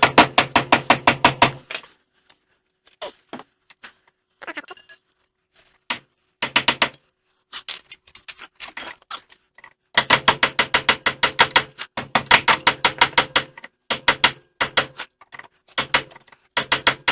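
Metal-on-metal hammering on a seized wheel hub assembly: quick runs of sharp ringing blows, about seven a second, broken by short pauses and a few single knocks, as the rusted-in hub is driven out.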